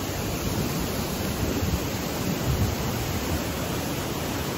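A steady rush of fast-flowing river water below a trail suspension bridge, an even roar with no breaks.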